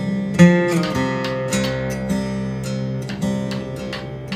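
Background music: an acoustic guitar plays a plucked and strummed country tune, with a note sliding down in pitch about half a second in.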